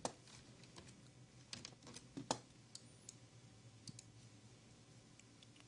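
Faint computer mouse clicks and keyboard key presses, scattered irregularly, the loudest a little past two seconds in, over a faint low steady hum.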